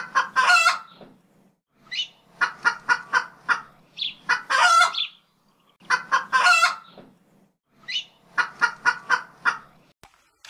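Chicken clucking and cackling: runs of quick clucks alternate with long, drawn-out squawks, the pattern repeating several times. A single sharp click comes about ten seconds in.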